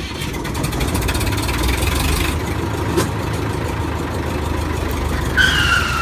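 A vehicle engine running steadily with a deep rumble. About five seconds in, a high tone starts and slides slowly down in pitch.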